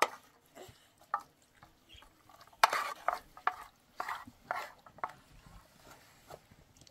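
A wooden spatula scraping and stirring through a meat-and-rice stuffing in a metal frying pan, in short, irregular strokes.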